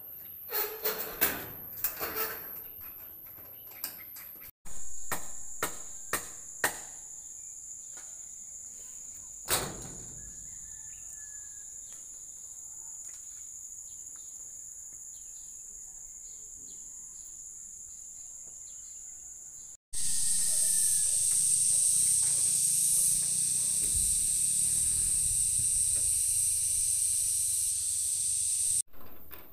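Insects shrilling in steady high tones, with scattered sharp knocks and clicks of work on a corrugated metal roof, mostly in the first few seconds. The sound changes abruptly several times, and it is loudest in the last third.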